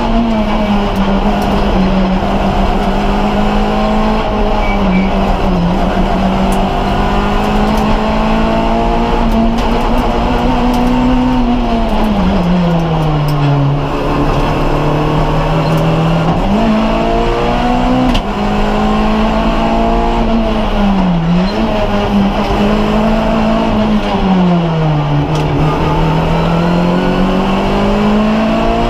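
Class A6/A6K rally car's small-capacity engine (up to 1600 cc) heard from inside the cabin, running hard on a stage. It holds a high, steady note at first, then drops and climbs back repeatedly as the driver lifts, brakes and accelerates between corners, with an abrupt gear change about eighteen seconds in.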